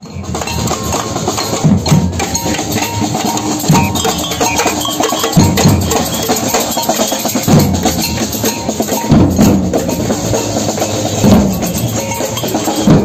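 A street parade drum band playing: fast stick strokes on snare drums over a deep bass-drum beat about every two seconds.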